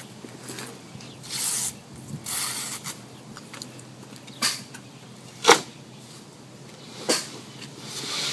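Paper end tape being torn off a bundle of sheetrock (drywall) boards, two short ripping sounds, followed by three sharp knocks as the boards are handled.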